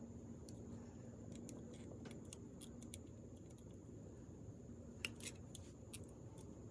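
Faint, scattered light clicks of small metal parts and a pouch being worked by hand, with a few sharper clicks about five seconds in, over a faint steady hum.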